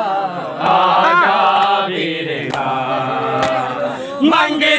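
Men's voices chanting a Punjabi noha (Muharram lament) in long held, wavering notes, with a few sharp slaps in between.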